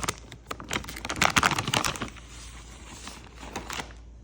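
Packet of crunchy cat treats being handled: a quick run of crinkling clicks for about two seconds, then softer rustling.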